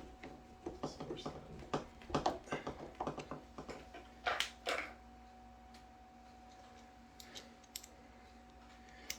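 Quick small metal clicks and taps from a hand screwdriver and door-handle hardware being fitted and screwed in by hand, with two short scrapes about halfway through. Afterwards only a few scattered clicks.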